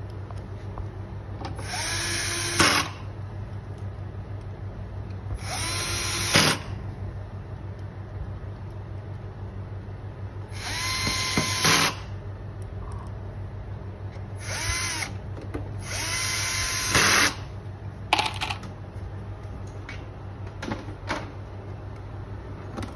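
Cordless drill-driver turning out the dehumidifier's casing screws in five short runs of about a second each, the motor whine rising in pitch as it spins up and then holding. A few sharp clicks follow near the end.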